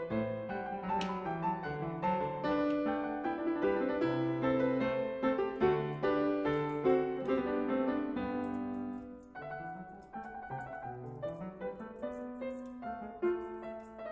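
Background piano music, a melody of steady notes over a lower accompaniment, growing quieter about two-thirds of the way in.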